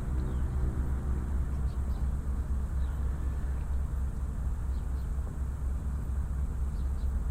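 Outdoor harbour-town ambience: a passing motor vehicle's engine hum fades out in the first second or so, leaving a steady low rumble with a few faint, short high chirps.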